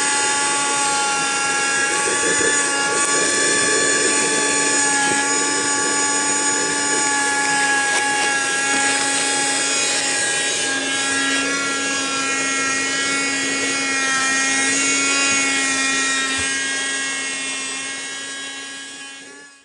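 A 12-volt vacuum cleaner running steadily, its motor giving a steady whine; the sound dies away over the last couple of seconds.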